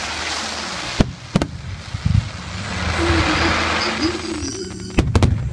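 Fireworks: a steady hiss of fountain fireworks and launching rockets that swells about three seconds in, with sharp bangs about a second in and a quick pair near the end.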